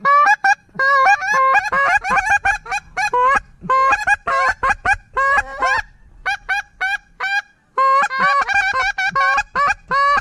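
Hand-blown duck call worked in rapid strings of short, loud quacking notes, with brief pauses about a third and again about three quarters of the way through and one longer drawn note starting the final fast run.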